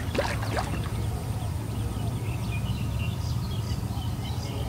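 A hooked giant snakehead splashing briefly at the surface in the first half second, over a steady low rumble. Faint bird chirps follow in the background.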